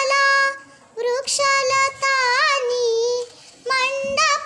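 A young girl singing a Marathi poem unaccompanied, in a clear high voice, in three phrases with short breaths between them.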